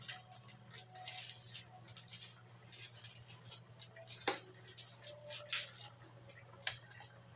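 Chicken broth simmering in a wide aluminium wok on a gas stove, bubbles popping irregularly over a steady low hum.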